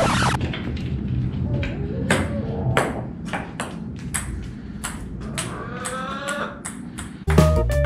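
Chickens pecking at bits of feed on a hard table-tennis tabletop: sharp, irregular taps. A hen gives a short clucking call about six seconds in, and background music with drums and guitar comes back near the end.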